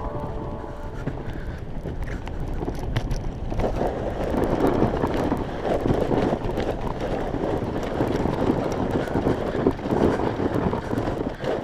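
Sled runners scraping and rattling over packed snow on a fast downhill run, with wind buffeting the microphone. The noise grows louder about three and a half seconds in.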